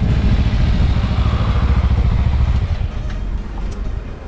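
Sports motorcycle engine idling with a steady low sound, getting somewhat quieter about three seconds in.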